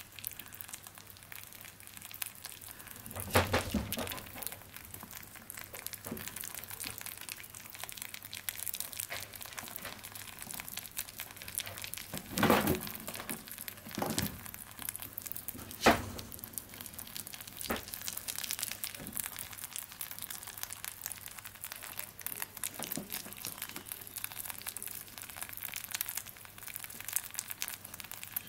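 Young rabbits nibbling and chewing a piece of banana held out to them, close up: a steady patter of small wet crunching clicks. A few louder bumps come through, the loudest about 3, 12 and 16 seconds in.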